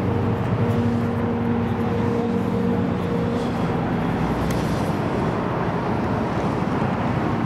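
Aero Spacelines Super Guppy Turbine's four Allison turboprop engines running during the landing rollout, heard as a steady rushing noise with a low droning tone that fades out about four seconds in.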